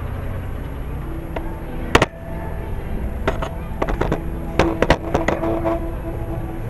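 A series of sharp pops and cracks, the loudest single one about two seconds in and a quick cluster of them between about three and a half and five and a half seconds, over a steady background of outdoor crowd noise and faint music.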